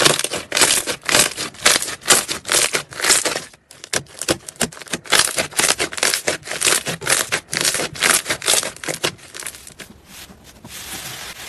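Thick slime being squeezed and kneaded by hand, making a run of crackling squishes about two a second. Near the end it turns to a softer, steadier rustle.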